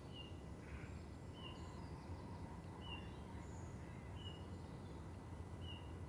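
Faint outdoor background noise with a bird giving a short high chirp about every second and a half, five times.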